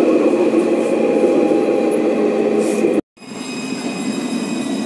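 Luas tram running along its track, heard from the front of the tram: a steady rumble with a faint high whine. About three seconds in the sound cuts off abruptly and a tram moving alongside a platform is heard instead, quieter, with steady high-pitched tones over its running noise.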